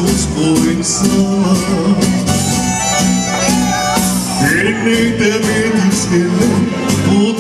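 Karaoke backing track playing through PA speakers while a man sings into a microphone.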